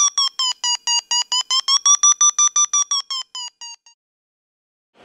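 A rapid run of short electronic beeps, about six a second, their pitch dipping and then rising slightly; they grow fainter and stop a little before the end.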